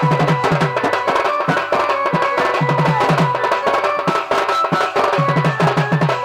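Dhol, a double-headed barrel drum played by hand, drumming fast runs of deep strokes that come and go between sharper, crisper strikes. A held melody line sounds above the drum.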